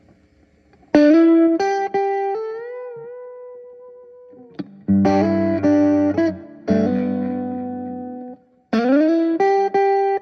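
Electric guitar played through a Jam Pedals Tubedreamer overdrive pedal. About a second in comes a single-note lick with a bend and vibrato that rings out and fades. Two strummed chords follow midway and are stopped short, then a new lick starts with a slide up near the end.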